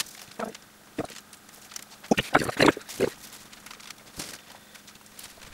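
Mashed sweet potato squelching out of a plastic piping bag as it is squeezed into small dollops, a handful of short wet squelches with the bag rustling.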